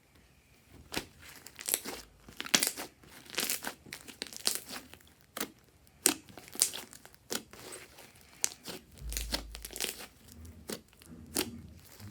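Fluffy slime being squeezed and stretched by hand, giving irregular crackles and pops.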